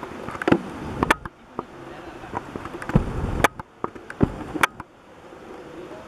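A handful of sharp clicks and low thumps at irregular intervals over a steady outdoor hiss. The loudest clicks come about a second in, at about three and a half seconds and at about four and a half seconds, and the last second is only the hiss.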